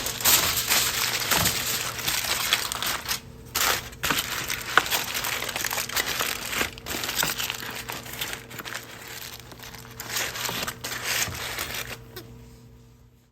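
Aluminium foil crinkling and crackling as it is handled and folded, with brief pauses, fading out near the end.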